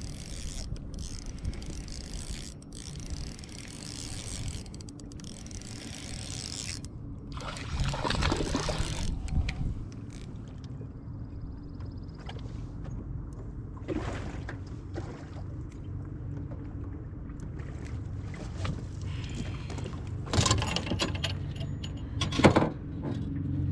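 Steady low hum of a small boat motor, with knocks and rattles on an aluminum fishing boat as a bass is landed and handled; louder clatter about eight seconds in and a sharp knock near the end.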